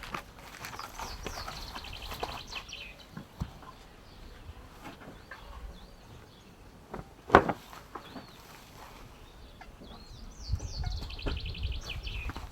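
A songbird singing the same short phrase twice, about ten seconds apart: a few curved high notes, then a fast trill. A single sharp knock about seven seconds in is the loudest sound.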